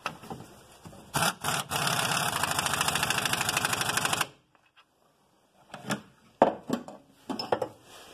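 Impact wrench hammering a bolt tight on the car's front suspension: a fast, even rattle for about two and a half seconds that stops abruptly. Two knocks come just before it, and a few light metal tool clinks come near the end.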